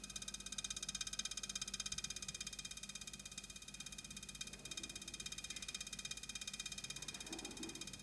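Samsung French door refrigerator vibrating with a steady, rapid rattling buzz. The vibration is still there after a second repair attempt.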